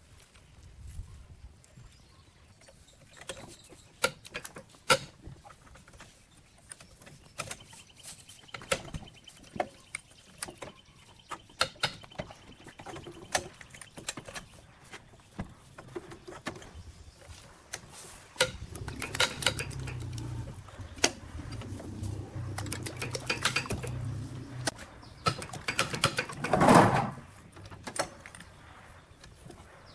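Scattered clicks and knocks of hand work on parts and tools, with a low steady hum for several seconds past the middle and one louder, short noisy burst near the end.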